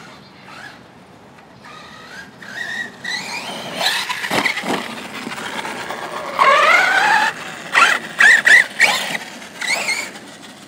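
Arrma Notorious 6S electric RC stunt truck driving fast on grass, its brushless motor whining up and down in pitch with the throttle. It is loudest past the middle, as the truck passes close by, with a few quick throttle blips near the end.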